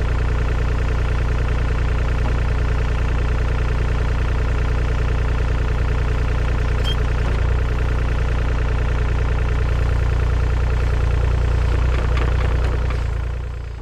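Mini excavator's diesel engine running at a steady idle, fading out near the end.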